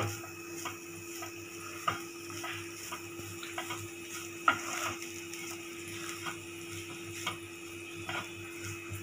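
Wooden spatula stirring and scraping a thick coconut-and-betel-leaf filling around a nonstick pan, with irregular light knocks against the pan, over a faint steady hum.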